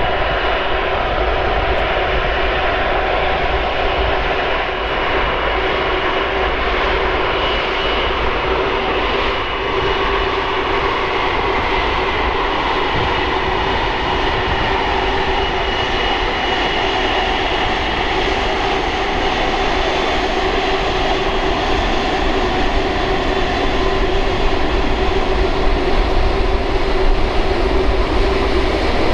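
Twin Rolls-Royce Trent 772B-60 turbofans of an Airbus A330-300 running at low power while the jet taxis: a steady jet whine with a few held tones. It grows a little louder near the end as the aircraft passes close by.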